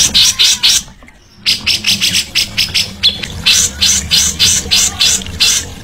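Songbird calling in a fast run of short, sharp high notes, about four or five a second, broken by a brief pause about a second in.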